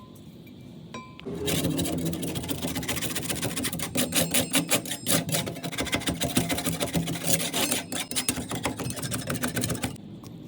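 Rough abrasive scraping on a refrigerator's rusty sheet-metal body, in rapid strokes. It starts about a second in and stops just before the end.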